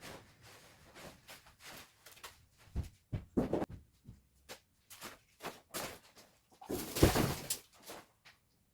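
Irregular knocks and clatter, with a longer, louder noise lasting under a second about seven seconds in.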